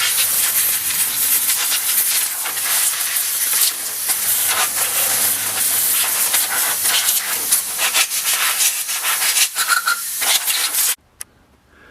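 Loud, steady hiss of a pressurized spray cleaning the chainsaw's gas and oil areas, cutting off sharply near the end.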